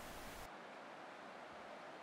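Faint, steady outdoor background hiss with no distinct events. About half a second in, the highest part of the hiss drops away.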